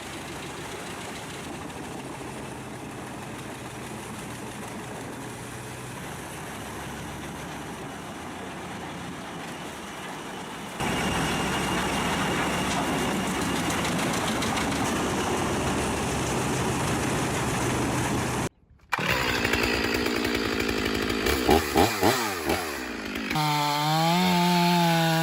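Wood-cutting machinery running in a series of short clips. A steady noisy run steps louder about eleven seconds in and breaks off briefly near the end. It is followed by an engine with a wavering pitch.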